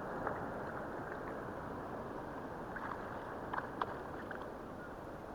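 Sea water lapping and sloshing against a kayak hull, with wind on the microphone. A few faint sharp clicks come around the middle.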